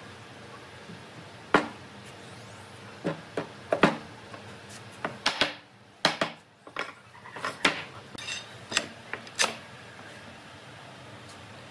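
Irregular series of sharp wooden knocks and clacks, about a dozen in all, from heavy railway-sleeper timber being handled and fitted into place.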